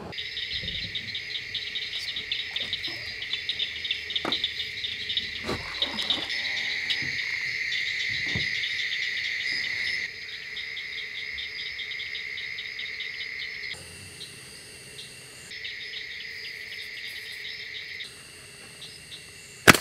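Night chorus of insects trilling steadily in a fast, pulsing buzz, its level jumping abruptly several times. Near the end there is a single sharp, loud knock.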